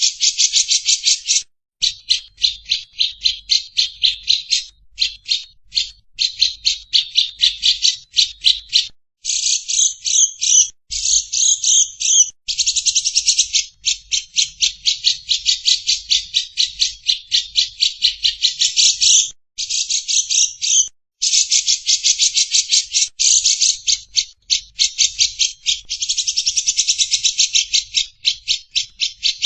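Caged lovebird and cucak jenggot (grey-cheeked bulbul) calling together: long runs of rapid, harsh, evenly repeated notes, several a second, broken by short pauses and a few more varied phrases. This is the lovebird's long 'ngekek' chatter mixed with the cucak jenggot's 'besetan' calls.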